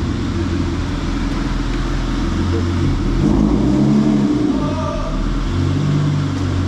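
Manual car's engine running and revving as it is driven, its pitch rising and falling twice with the throttle.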